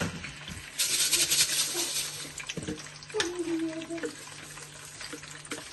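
Kitchen tap running for about a second, then stopping, with a few knocks around it.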